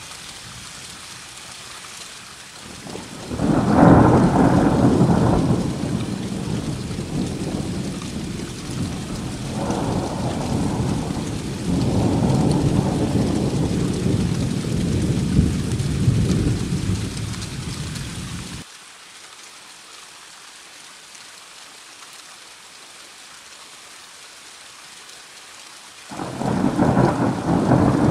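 Thunderstorm: steady rain hiss with a long rolling peal of thunder that breaks loud about three seconds in and rumbles on for some fifteen seconds before stopping abruptly. The rain carries on alone, and a second loud thunder rumble starts suddenly near the end.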